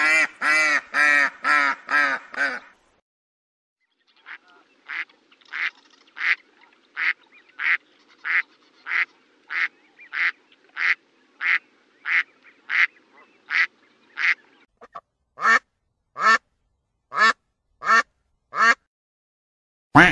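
Domestic ducks quacking in three separate runs divided by dead-silent gaps: a quick burst of about six quacks, then a long, even series of quacks at about one and a half a second, then five louder quacks near the end.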